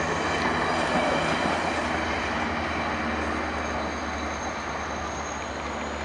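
Stainless-steel Budd passenger cars of a VIA Rail train rolling past, wheels running on the rails. The last car goes by and the sound fades slowly as the train pulls away.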